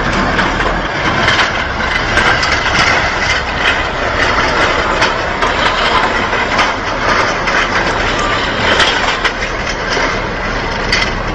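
Heavy machinery running loudly, with frequent clattering knocks throughout.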